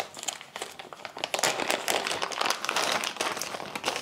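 Clear plastic packaging bag crinkling as it is opened and handled, louder from about a second and a half in.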